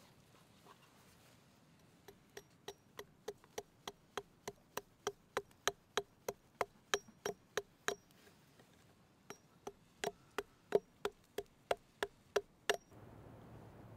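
Small hatchet chopping a wooden spoon blank on a chopping log to rough out its shape. The short, even strikes come about three a second in two runs with a brief pause between them, and stop about a second before the end.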